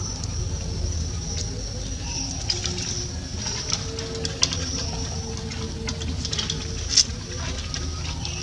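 Scattered small clicks and rustles over a steady low rumble and a faint high hiss; the sharpest click comes about seven seconds in.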